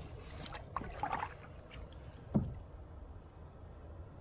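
Single-blade canoe paddle strokes on calm lake water: the blade dipping and pulling, with small splashes and drips. One sharp knock comes about two and a half seconds in.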